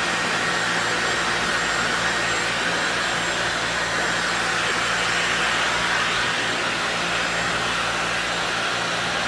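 Dyson Supersonic hair dryer running steadily at its maximum heat and airflow settings, with the gentle air attachment fitted: a loud, deep rush of air without screech.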